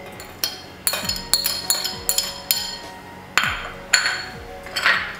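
Background music with a beat, over light clinks of chopped cucumber pieces dropping into a stainless-steel mixer-grinder jar from a glass bowl.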